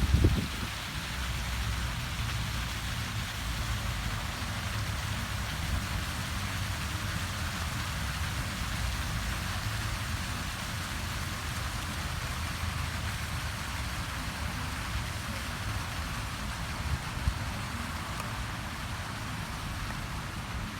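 Water fountain splashing in a steady, rain-like hiss, with a low rumble underneath.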